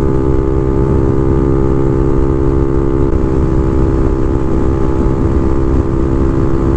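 Honda Navi's small single-cylinder four-stroke engine running loud through a Yoshimura RS2 exhaust with its silencer (baffle) removed, under throttle at a steady engine speed. The note holds even, with a slight shift about three seconds in.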